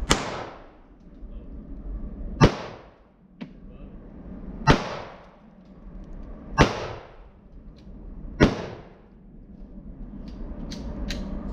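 Five gunshots fired about two seconds apart, each a sharp crack with a short echoing tail. There is a fainter click between the second and third shot, and a few light clicks near the end.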